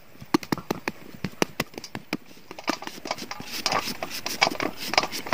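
Large kitchen knife hacking quick chops into a peeled green papaya, about four or five sharp knocks a second, changing after about two and a half seconds to denser, hissier scraping strokes as thin shreds are shaved off onto an enamel plate.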